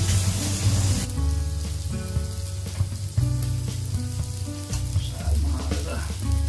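Beef, sausage and gyoza sizzling on a tabletop electric grill plate, the frying hiss strongest in the first second. Background music with a steady bass line plays over it.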